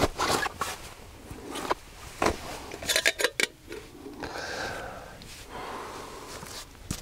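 Camping gear being handled and rummaged through: scattered sharp clicks and knocks, a quick cluster of them about three seconds in, with soft rustling of a bag or fabric a little later.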